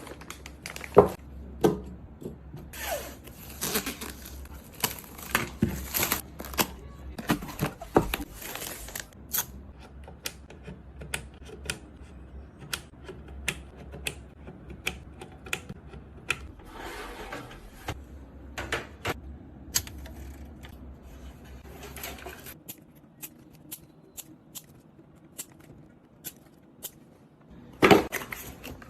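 PC components and hardware being handled during assembly: irregular clicks, taps and snaps with short bouts of rustling, and a louder knock near the end.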